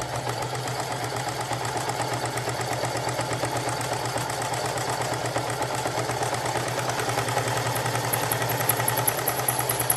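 Singer Heavy Duty 4432 sewing machine running at a steady speed, its motor humming under a fast, even needle rhythm. A high whine comes in near the end as the pulsing grows stronger.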